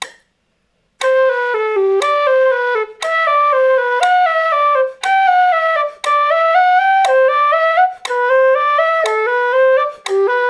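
Quena (Andean notched flute) playing a stepwise scale exercise, four slurred legato notes to each metronome click, the notes joined without tonguing. The metronome ticks about once a second; the playing starts about a second in.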